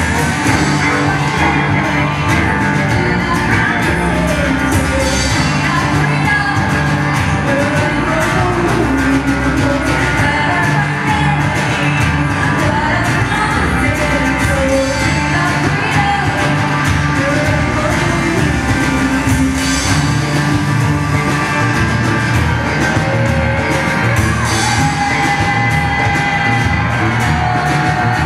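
Live band playing a song with a woman singing lead over guitars, cello and drums.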